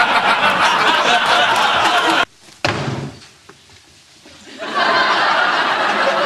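Studio audience laughter, cut off abruptly about two seconds in, then a single sudden thump that dies away quickly; the laughter swells again near the end.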